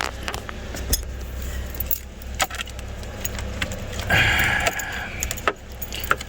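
Sharp plastic clicks and light rattles of hands working a relay out of a fuse box, with a brief rustle about four seconds in.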